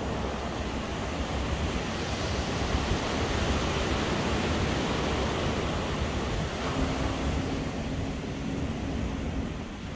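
Ocean surf washing onto the beach, a steady rush that swells around the middle, with wind. A faint low steady hum comes in past the middle and fades near the end.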